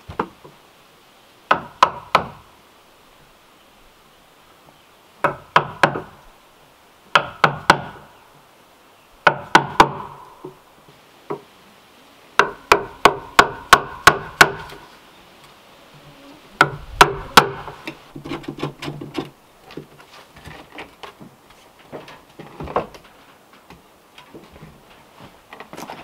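Hand tool striking hard wood on a log-cabin door, sharp knocks in quick bursts of three or four, with a longer run of about nine a little past the middle. Lighter clicks and scraping follow in the last third.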